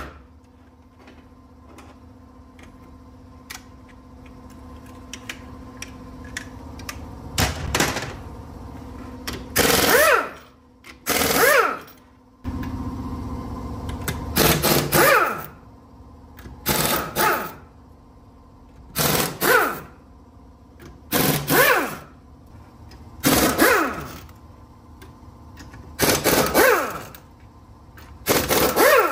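Impact wrench firing in a series of short bursts, each under a second, irregularly spaced from several seconds in, over a steady machine hum.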